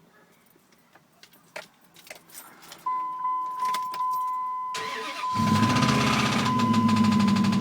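Keys jingling, then a steady high beep comes on, and a 2002 Dodge Ram's 4.7-litre V8 cranks and starts about five seconds in. It runs with a loud, fast, even clatter from the engine, which three mechanics take for a sign that the engine needs replacing.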